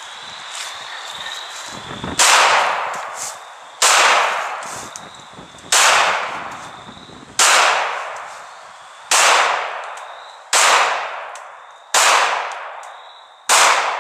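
Eight 9mm pistol shots from a Glock 19, fired one at a time about a second and a half apart, each with a trailing echo.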